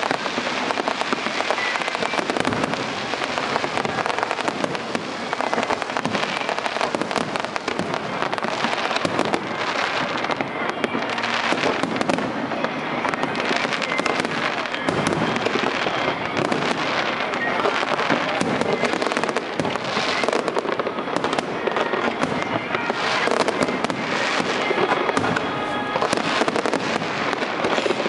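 Aerial fireworks display: shells bursting one after another in quick succession, with continuous crackling.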